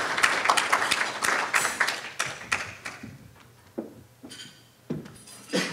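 Logo-animation sound effect: a quick run of sharp clicks and swishes that slows and fades over about three seconds, then a few softer single hits.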